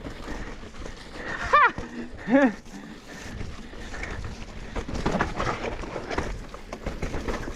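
Mountain bike descending a rough downhill trail: continuous tyre and rattle noise with small knocks throughout. The rider gives two short pitched grunts about one and a half and two and a half seconds in.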